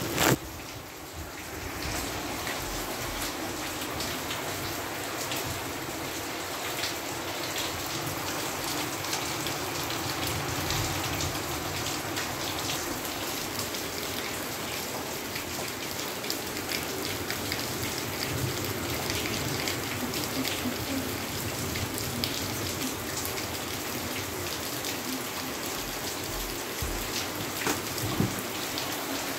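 Steady rain falling, an even hiss scattered with fine drop ticks. A single sharp knock comes right at the start, and a smaller click near the end.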